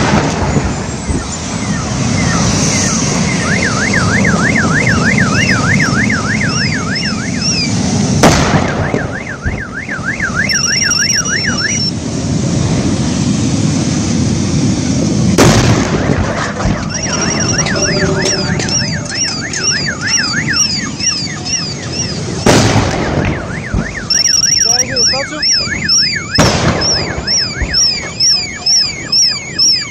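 Car alarms wail in warbling, up-and-down cycles over a steady low rumble, while propane cylinders in the burning wreck go off as four sudden loud bangs spread through the stretch.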